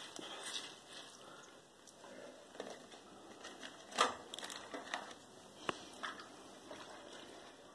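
Sodden paper pulp squelching and crinkling as it is pulled out of a bucket of water and packed by hand into a newspaper-lined paper log press, with a few sharp crackles, the loudest about four seconds in.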